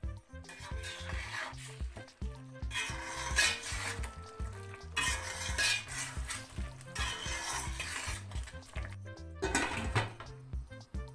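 Metal spatula stirring and scraping chicken curry in a stainless steel pot, in several strokes of a second or two each. Near the end the glass lid is set down on the pot. Background music plays under it.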